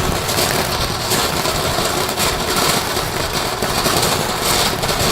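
Silver snow fountain firework burning with a steady spraying hiss.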